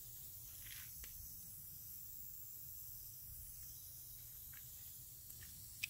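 Faint footsteps on wet concrete: a few light taps and a sharper click near the end, over a low steady rumble.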